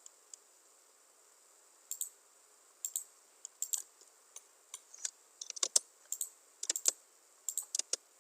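Computer keyboard and mouse clicking: quiet for about two seconds, then a run of short, sharp, irregular clicks in small clusters.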